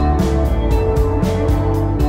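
Shoegaze/dream-pop band playing an instrumental stretch: electric guitar and electric bass over steady drum hits about twice a second, with no singing.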